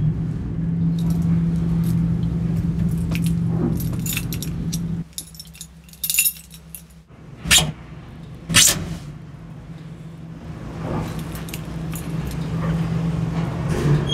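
Keys jangling in a hand, with two sharp jangles about halfway through, inside a moving lift car over the steady hum of the lift running. The hum drops out for a couple of seconds just before the jangles and then comes back.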